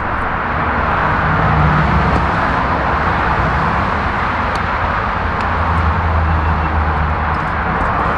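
Steady road traffic noise, with a low engine hum that comes and goes twice.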